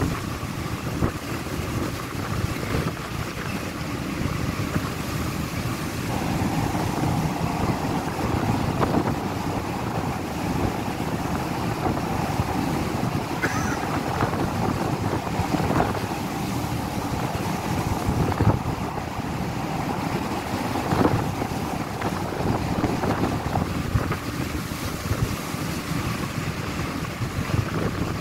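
Gale-force wind buffeting the microphone in irregular gusts, over the steady rush of a rough sea, on the open deck of a ferry under way.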